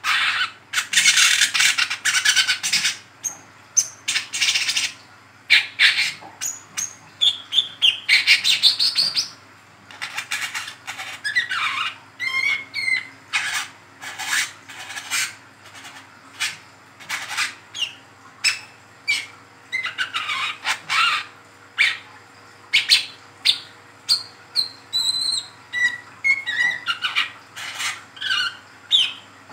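Juvenile brown-throated sunbird (kolibri kelapa) giving a long, rapid run of short, high chirps and chattering twitters with only brief pauses: the busy twittering song that keepers call ngeriwik.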